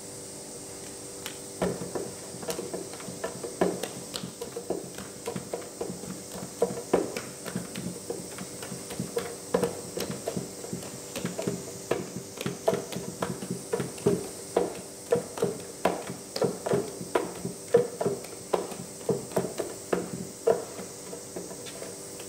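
Buckwheat soba dough being kneaded by hand in a kneading bowl, in chrysanthemum kneading (kiku-neri): an irregular run of soft knocks and thuds, a few a second, as the dough ball is pressed and turned against the bowl to push the air out of it.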